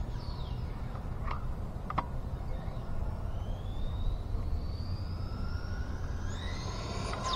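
Team Associated DR10 electric RC drag car's motor and gears whining, the pitch rising steadily as it accelerates toward the microphone, over a low wind rumble on the mic. The slipper clutch is slipping and costing power.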